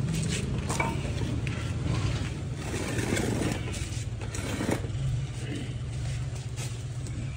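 Metal clinks and scrapes as a stripped-down Bajaj Pulsar NS200 engine is handled and turned on a wooden stand, over a steady low motor hum.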